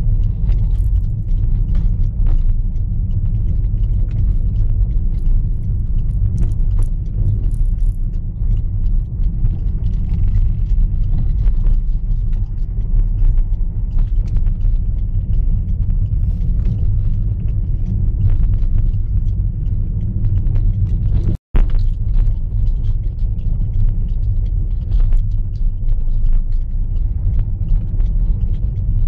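Moving vehicle heard from inside its cabin: a steady low rumble of engine and road noise, with frequent small knocks and rattles. The sound cuts out for an instant about three-quarters of the way through.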